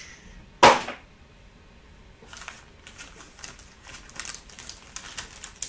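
A single short knock about half a second in, then faint crinkling and clicking as trading cards and their packaging are handled.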